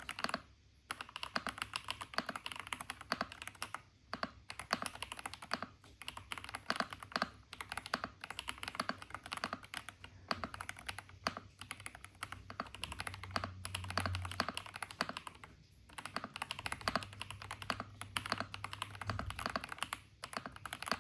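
Fast typing on a WK87 mechanical keyboard with Akko Cream Yellow linear switches: a dense run of keystroke clacks, broken by a few short pauses, that stops just before the end.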